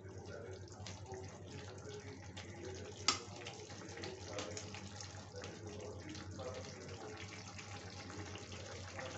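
Okra and onions simmering and crackling in a watery gravy in a kadhai, stirred with a metal spatula; the spatula scrapes and clinks against the pan, with one sharp clink about three seconds in.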